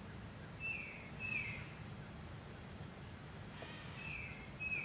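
A bird calling outdoors: two short downslurred calls about a second in, then the same pair again near the end, over a faint steady low rumble.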